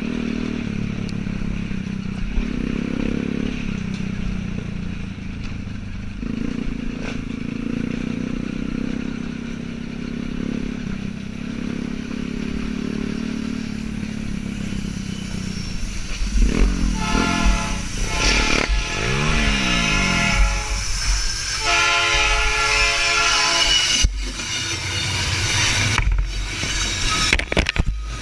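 A dirt bike engine runs and revs for the first half. From about halfway a train's air horn sounds several long warning blasts. Near the end the train passes with a rumble and clattering wheels.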